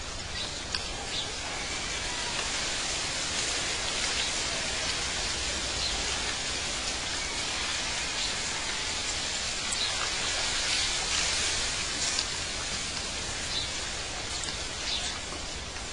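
Steady rush of falling water, with a few faint bird chirps now and then.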